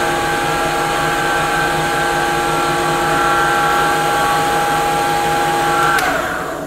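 Wood lathe running at steady speed, its motor giving a steady whine with several tones over a noisy hum while the spinning workpiece is worked by hand. About six seconds in there is a click and the whine falls in pitch and fades as the lathe is switched off and spins down.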